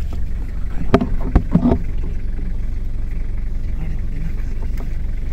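Vehicle engine running with a steady low rumble, heard from inside the cab, with a few short knocks about one to two seconds in.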